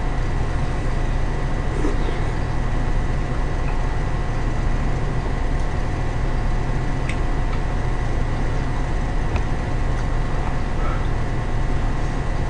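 Steady low hum and hiss of background noise with a faint steady whine, and a few faint clicks.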